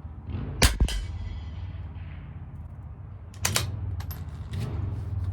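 A single quiet shot of Eley Subsonic hollow-point .22 LR from a CZ 457 LRP bolt-action rimfire rifle: two sharp cracks a fraction of a second apart, less than a second in. About three seconds later come a few sharp metallic clicks, over a steady low hum.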